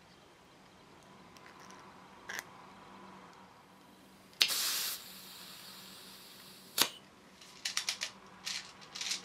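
Green gas being charged into a metal airsoft shotgun shell from a gas can: about halfway through, a short loud hiss that tails off into a fainter hiss for about two seconds and ends with a sharp click. Light clicks and knocks of the metal shells being handled follow.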